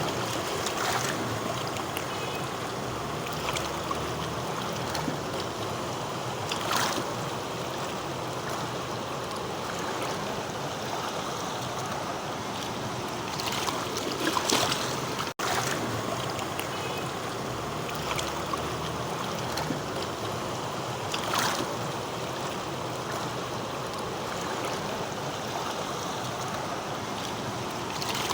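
Swat River's fast mountain water rushing steadily, with a few brief louder splashes and a short dropout about halfway through.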